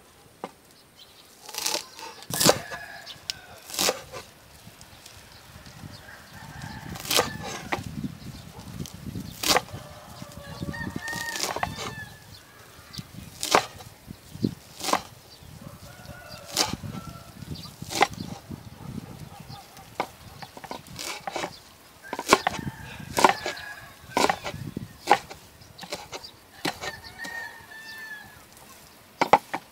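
Chickens clucking, with short calls here and there, amid sharp, irregular knocks about once a second.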